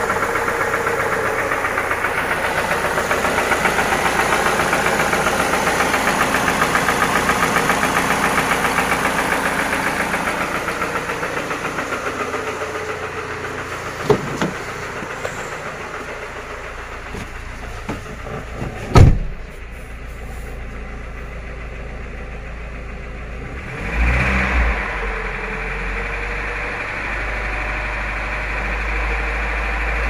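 Toyota Prado 2TR-FE 2.7 L four-cylinder petrol engine running with a steady rhythmic knock, which is put down to worn crankshaft bearings. A single loud thump comes a little past halfway, and the engine is revved up again later on.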